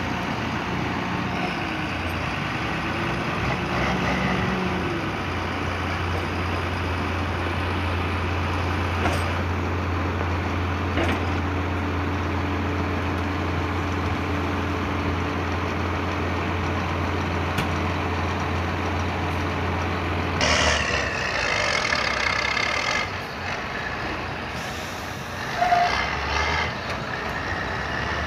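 Diesel engine of a John Deere tractor running steadily, working the hydraulics while a tipping trailer unloads chopped maize. About twenty seconds in the sound changes to a higher whine, and a short sharp squeak comes near the end.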